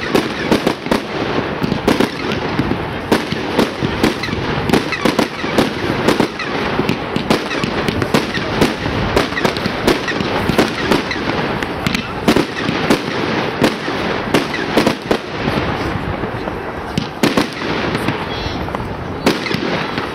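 Fireworks display: aerial shells bursting in a dense run of sharp bangs and crackles, several a second, with no break.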